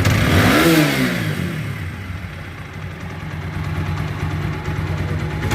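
TVS Apache RTR 160 4V single-cylinder engine blipped once and settling back to a steady idle, with another blip starting near the end. It has a freshly fitted camshaft, clutch plates, crank bearing and spark plug, and runs evenly at idle.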